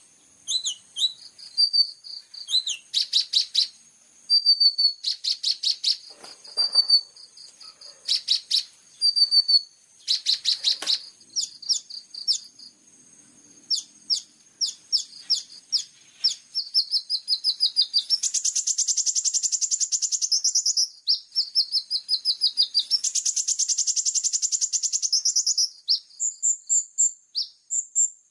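A small songbird's high-pitched song: bursts of rapid chirps and short whistled notes, with two long, fast trills past the middle. It is a masteran song recording meant to teach captive olive-backed sunbirds (konin) to sing full of fill-in phrases.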